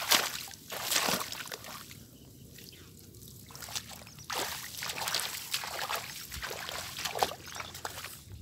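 Water sloshing and splashing in short, irregular splashes, quieter for a second or so in the middle.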